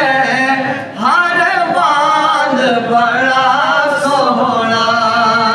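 A man singing a naat without instruments, holding long, wavering melismatic notes, with a short breath about a second in.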